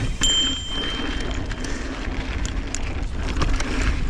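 Wind buffeting an action camera's microphone as a full-suspension mountain bike rolls over packed-dirt pump-track rollers, with scattered clicks and rattles from the bike. A thin high whine is heard for about a second near the start.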